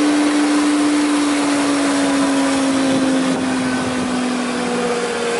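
Jaroma DSMC 60 thickness planer running empty, a steady whir with a strong hum that slowly falls in pitch as the motor and cutterhead wind down.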